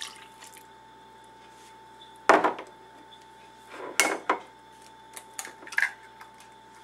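Glass measuring cups and kitchenware being set down and knocked on a countertop: a few sharp separate clinks and knocks, the loudest about two seconds in, with a faint steady hum underneath.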